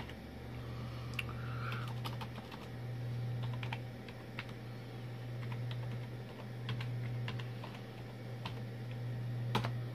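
Computer keyboard keys pressed one at a time while a password is typed, giving irregular sharp clicks. Under them runs a steady low hum that briefly drops out a few times.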